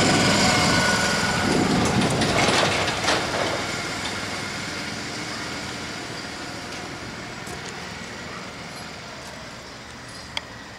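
Train running on the rails, its rumble loudest at first and fading steadily, with a few knocks about two to three seconds in and a sharp click near the end.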